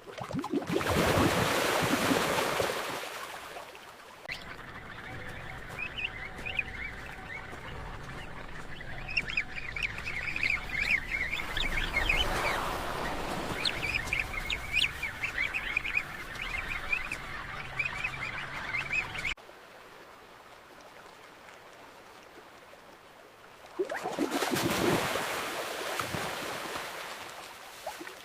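A rush of water at the start, then a penguin colony calling: many short, high calls overlapping for about fifteen seconds before cutting off suddenly. Another rush of water comes near the end.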